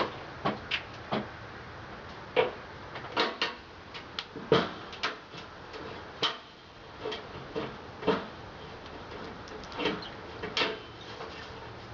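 Irregular light clicks and knocks, about fifteen scattered unevenly through the span, over a faint steady low hum.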